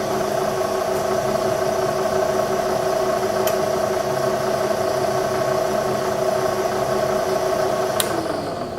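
Bridgeport milling machine running in low back gear at slow spindle speed while a tap is fed into the hole: a steady motor and gear hum with a couple of light clicks. Near the end it slows down and the hum drops away.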